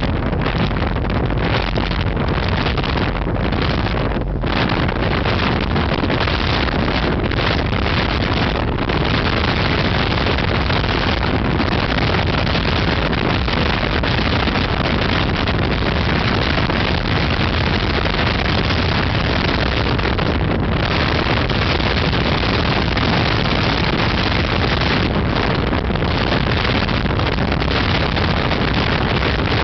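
HydroStream Vegas speedboat under way, its engine running steadily under a loud rush of wind on the microphone. The hiss thins briefly a few times.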